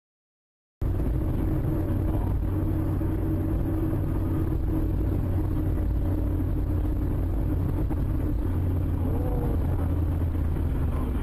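Steady rumble of a car driving, engine and road noise, cutting in suddenly about a second in.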